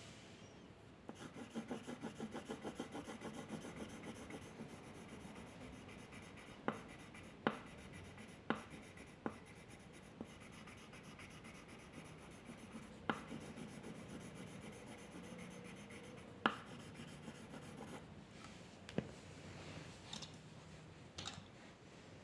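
A drawing tool scratching on paper. It opens with a quick run of back-and-forth shading strokes, about six a second, then goes on with lighter strokes broken by about eight sharp taps.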